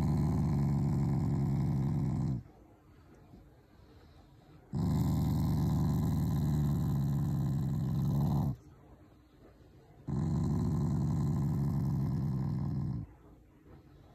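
Black Shiba Inu growling in three long, low rumbles of three to four seconds each, with short pauses between. It is his habitual "garu-garu" growl of affection toward his family, not a threat.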